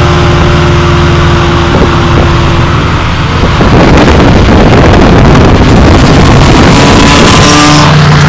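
Car engine running at highway speed with heavy wind noise on the microphone; about three and a half seconds in, the sound swells into a loud, dense rush that covers the engine's steady tone.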